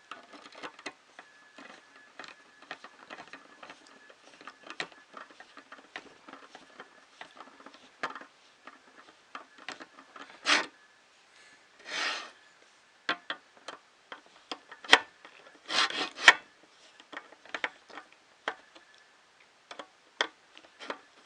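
Small metal printer-kit parts and bolts being handled and fitted together by hand: a run of light clicks, taps and rubbing, with a couple of longer scraping sounds about halfway through and a cluster of sharper clicks a little later. A faint steady high tone sits underneath.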